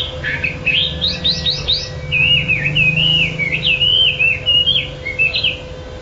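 Caged hwamei (wambi) singing: a run of quick rising whistled notes, then a long rapid warble that wavers up and down, breaking off about half a second before the end.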